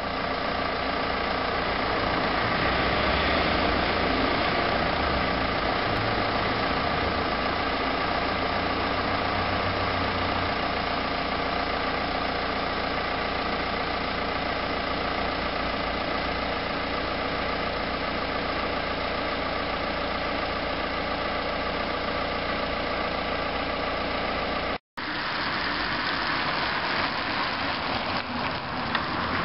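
A steady idling engine, an even hum made of many unchanging tones over a low rumble. It cuts off suddenly near the end and gives way to street noise as a car drives by.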